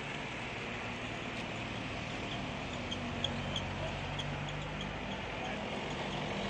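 Street noise: cars running and passing slowly, a steady hum and rumble, with faint voices in the background.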